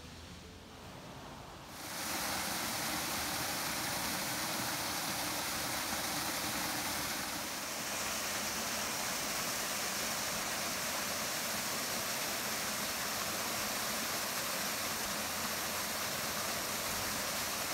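Steady rushing of a small waterfall pouring over a rock ledge into a pool, coming in abruptly about two seconds in after a quiet start.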